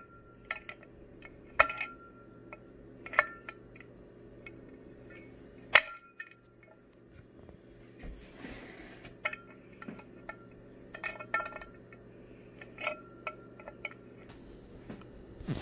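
Needle-nose pliers clicking and clinking against the metal nuts and terminal posts of a subwoofer's push terminals as they are tightened. The clicks are sharp and scattered, about a dozen, some with a brief metallic ring, and there is a short rustle about eight seconds in.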